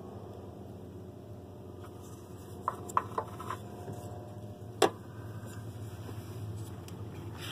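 Brass fuel-line fittings and hand tools being handled: a quick run of light metallic clicks about three seconds in, then one sharper clink near five seconds, over a steady low hum.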